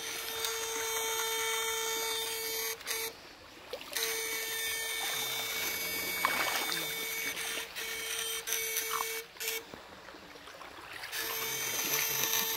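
Electrofishing shocker buzzing with a steady electric hum while its probes are in the creek, cutting out twice for about a second as the current is switched off, over a faint trickle of water.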